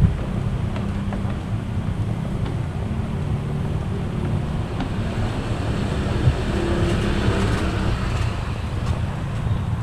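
Steady low rumble of wind buffeting the microphone, with a single brief knock about six seconds in.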